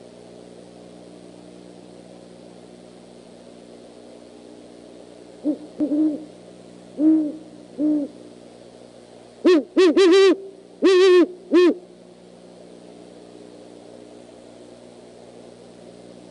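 Great horned owls hooting: a series of four deep hoots about five seconds in, then a louder series of about six hoots a couple of seconds later, as the owls call back and forth.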